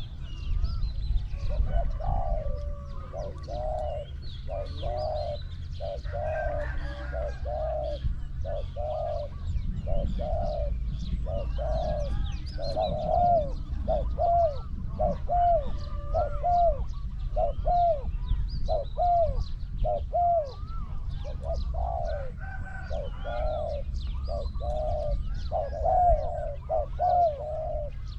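Spotted doves cooing, a long run of repeated coo phrases, about one to two notes a second, with small birds chirping faintly and a steady low rumble underneath.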